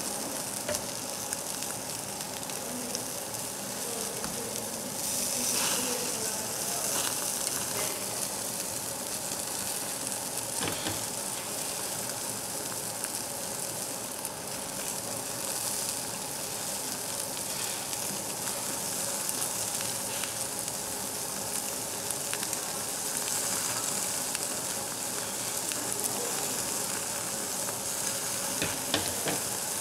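Pork sizzling on a hot slotted grill plate, a steady hiss of fat frying, with a few brief clicks.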